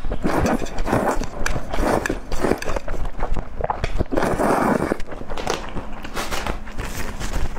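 Close-miked slurping of saucy noodles in repeated bursts, the longest a little past the middle, followed by wet chewing near the end.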